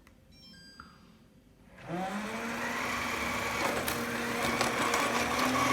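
Samsung POWERbot VR10M7030WG robot vacuum's motor starting up about two seconds in, its whine rising in pitch as it spins up, then running steadily.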